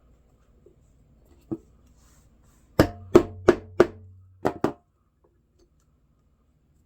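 A single faint knock, then a quick run of six sharp knocks, four evenly spaced and then two close together, with a low hum under the first four.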